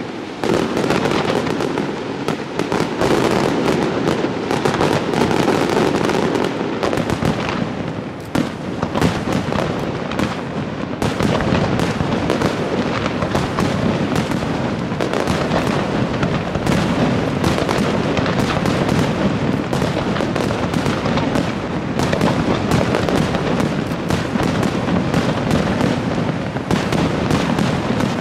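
Aerial fireworks display: shells bursting one after another under a dense, unbroken rattle of rapid pops, easing briefly about eight seconds in.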